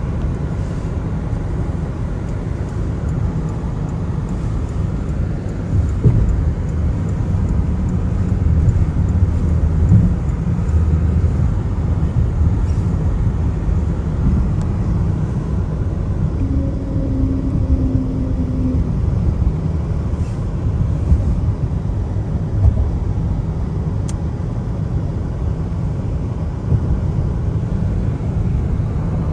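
Car driving on a wet road, a steady low rumble of tyres and engine with a few light knocks. A brief faint tone sounds about two-thirds of the way through.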